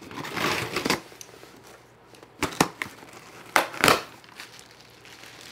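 Packaging being cut and handled for unboxing: a rustle of plastic and paper in the first second, a couple of sharp clicks about two and a half seconds in, and a louder crinkle near four seconds.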